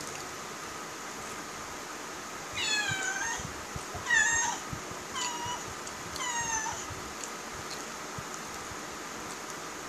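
A cat meowing four times in a row, about a second apart, each call short and dropping in pitch at the end.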